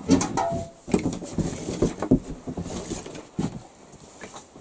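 Wooden kindling sticks being picked up and knocked together on a wooden floor: a short pitched squeak at the start, then a string of irregular knocks and clatter.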